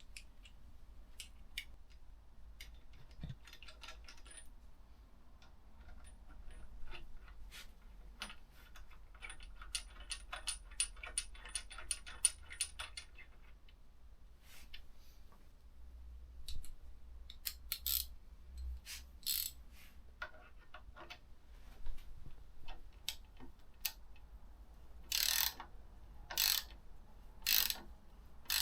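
Hand tools working the bolts of motorcycle bar-end mirrors: scattered small metal clicks, a run of rapid clicking in the middle, and four short rasping strokes about a second apart near the end.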